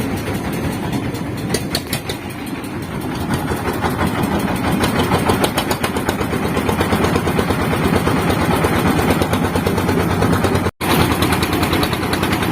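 Small motorcycle engine running steadily under way, a fast rapid pulsing with a brief cut-out about eleven seconds in.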